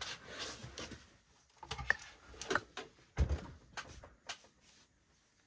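Handling noise as the boxy plastic UPS unit is moved about on the bench: a scatter of light clicks and knocks, with one heavier dull thump about three seconds in.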